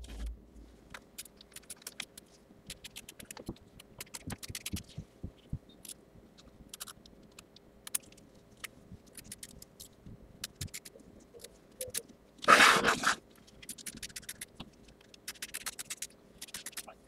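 Scissors snipping fabric in many short, irregular cuts, trimming excess appliqué fabric close to a tack-down stitch line. A louder scraping rustle comes past the middle, under a faint steady hum.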